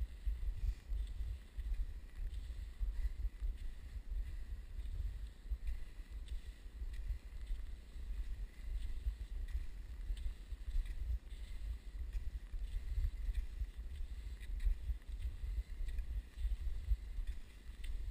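Wind buffeting the microphone of a camera carried along while skiing over snow: a low, uneven rumble, with faint scratchy ticks of skis gliding on snow.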